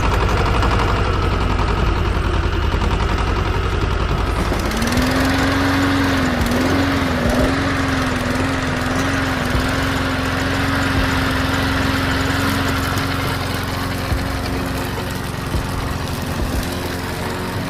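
A motor-driven machine running steadily, with a fast low chugging at first. About five seconds in, a steady hum sets in, wavers briefly and then holds.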